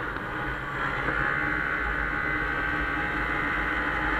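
1996 Arctic Cat Bear Cat 340 snowmobile's two-stroke engine running under way across a frozen pond. Its note rises a little about a second in and then holds steady.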